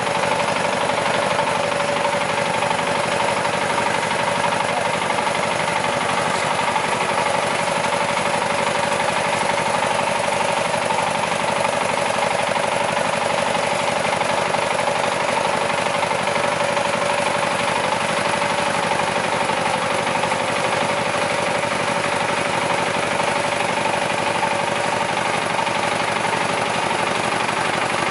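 Small tractor engine running steadily while towing an air-blast orchard sprayer, its large rear fan blowing spray mist; an even, unbroken mechanical drone with a steady hum in it.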